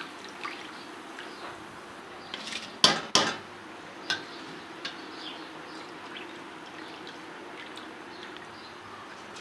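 A pot of water at the boil, bubbling steadily, with two sharp knocks against the pot about three seconds in and a few light ticks after.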